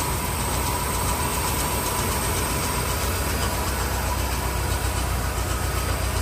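1975 Chevrolet Caprice's V8 engine idling steadily with an even low rumble, running again after sitting unstarted for 28 years.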